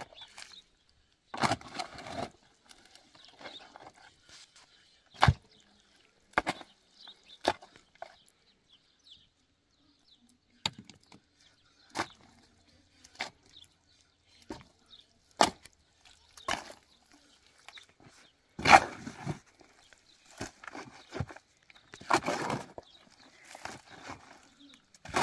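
Irregular knocks and clatter of objects being handled, with short scraping rustles between; the loudest knocks come about five, fifteen and nineteen seconds in.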